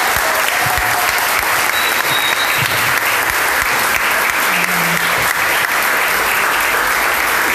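Audience applauding, a dense steady clapping that is louder than the talk around it.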